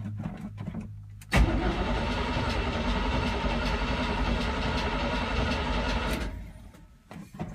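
1984 GMC 3500's small-block 350 V8 starting from cold: the starter cranks briefly, the engine catches with a sudden loud burst about a second in, runs roughly for about five seconds, then dies away. Cold start after weeks sitting in freezing weather, on a rebuilt Quadrajet carburettor whose choke the owner doesn't think is set right, so it needs the pedal pumped to keep running.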